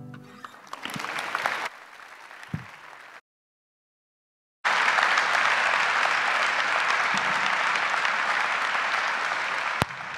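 Student audience applauding at the end of a song: thin clapping at first, a second and a half of dead silence about three seconds in, then full, dense applause that drops back with a sharp click near the end.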